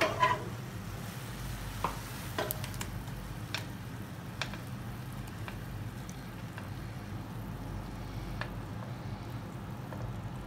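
Silicone spatula scraping creamy chicken stuffing out of a non-stick frying pan into a glass bowl: soft scrapes and a few light taps, the first a clatter that rings briefly, over a steady low hum.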